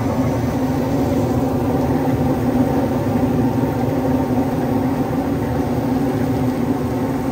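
Steady, unbroken engine hum with a strong low drone, like a motor running continuously close by.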